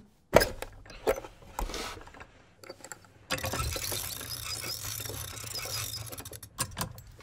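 Wooden pinned-cylinder music box being opened and wound. A sharp click and a few wooden knocks come as the lid is opened, then the winding crank ratchets in a steady run of rapid clicks for about three and a half seconds, ending in a few separate clicks.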